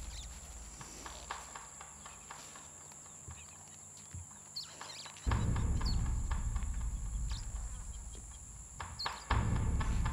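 Footsteps crunching through dry leaf litter and twigs, with a few short bird chirps and a steady high whine. A deep low rumble comes in suddenly about five seconds in, drops briefly near nine seconds and returns.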